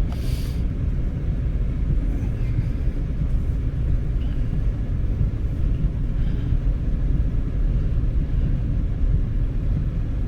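Steady low rumble of a car driving, heard from inside the cabin: road and engine noise with no sharp events.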